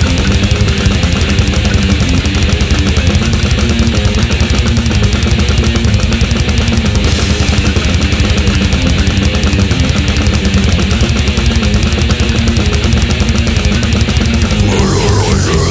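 Death metal music: distorted electric guitars over very fast, dense drumming, loud and unbroken, with a change in the riff near the end.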